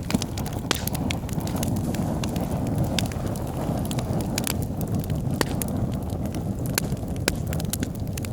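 Wood fire burning in a fireplace: a low steady rumble of flames with irregular sharp crackles and pops from the burning logs, several a second.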